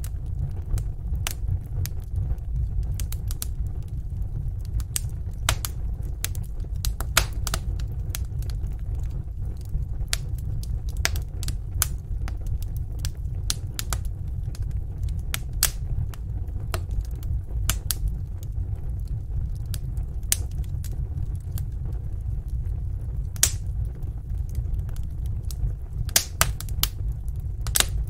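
Wood fire burning in a fireplace: irregular sharp crackles and pops of the burning wood over a steady low rumble.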